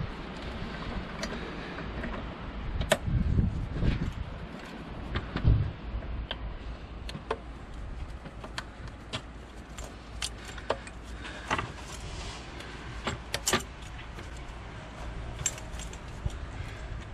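Gloved hands working connectors and rubber vacuum hoses back onto a diesel engine's intake manifold: scattered light clicks and taps, with a few duller knocks in the first few seconds.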